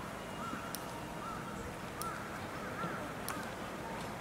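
A bird calling over and over in short rising-and-falling notes, about one or two a second, with sharp ticks every second or so.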